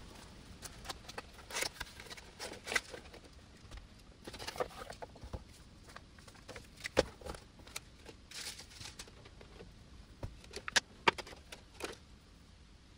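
Cardboard box and paper packaging being opened and handled: scattered rustles and crinkles, with a few sharper clicks and taps about seven seconds in and again near the end as the handheld scan tool is lifted out.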